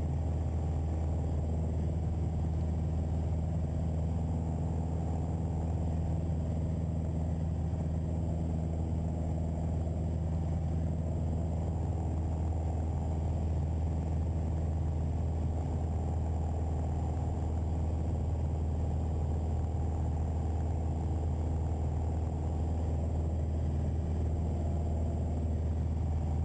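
Piper Archer's four-cylinder Lycoming O-360 engine and propeller droning steadily at cruise power, heard inside the cabin.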